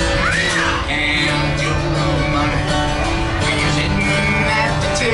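Country song on acoustic guitar, with a voice singing along.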